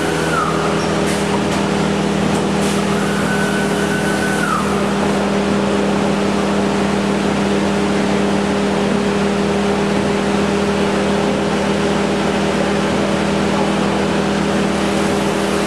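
SCM Accord 40 FX CNC machining centre running, its spindle spinning a sanding brush: a steady hum with a broad rush of noise. Twice in the first few seconds a higher whine rises, holds briefly and drops away.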